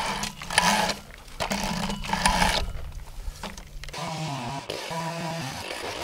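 Idling chainsaw with its chain scraped against a log to clear out packed debris, giving several rough scraping rattles. About four seconds in the sound changes abruptly to the saw running on with a wavering pitch.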